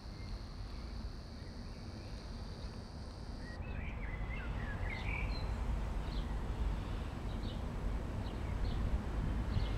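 Small birds chirping in short, quick calls over a steady low outdoor rumble. A thin steady high whine cuts off suddenly about three and a half seconds in, just before the chirps begin.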